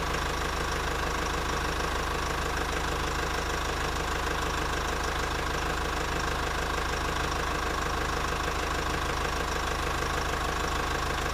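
Steady truck-engine running sound with a fast, even knocking pulse, like a diesel at idle. It holds at one level throughout.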